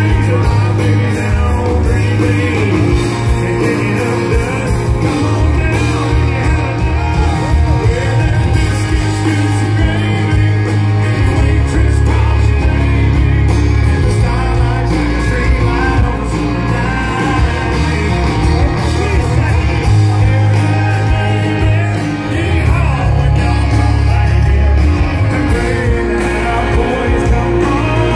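Live country band playing with a lead singer: electric guitars and drums with heavy, boomy bass through a stage sound system, heard from within the crowd.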